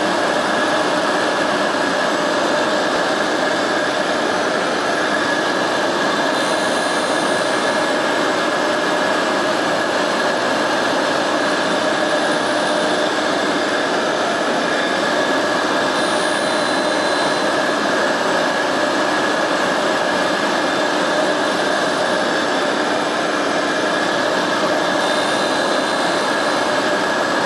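A tool and cutter grinder's wheel spins while it regrinds the flutes of a worn end mill, giving a steady whine and rush at an even level. A shop vacuum runs alongside.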